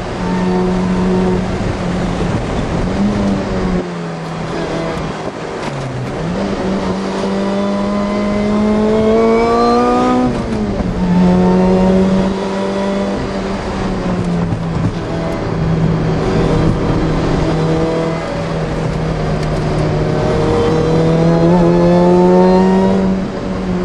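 Supercharged car engine (9.7 psi boost) heard from inside the cabin, pulling hard on a twisty road. The pitch climbs steadily as it accelerates, a long pull about a quarter of the way in and another near the end, each falling back sharply as the driver shifts or lifts. A whine rises with the revs.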